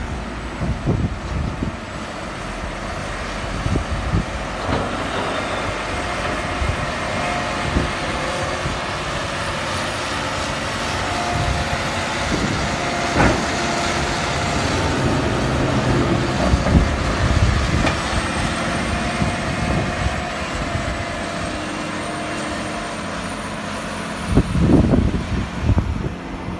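A large four-wheel-drive John Deere tractor's diesel engine running steadily under load as it pushes and packs chopped corn silage up the pile. Gusty low rumbles on the microphone come and go, strongest near the end.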